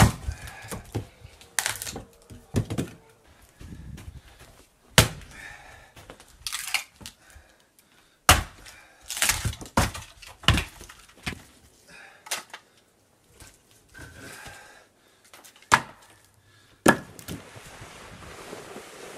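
A series of sharp, uneven knocks and thunks, about a dozen, some ringing on briefly after the hit, like blows on wood.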